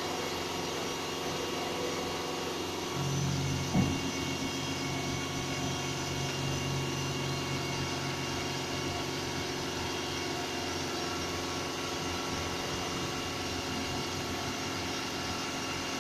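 Flatbed recovery truck's engine and hydraulic bed mechanism running steadily as the car is hauled up and the tilted bed is brought level. A humming tone joins about three seconds in and fades out around ten seconds, with a single sharp knock just before four seconds.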